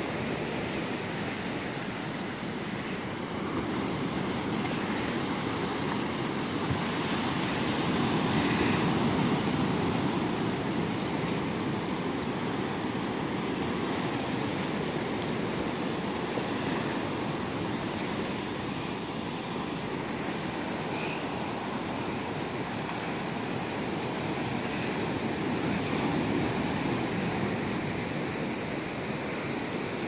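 Ocean surf breaking over rocks and washing up the sand: a steady rush that swells and eases with the waves.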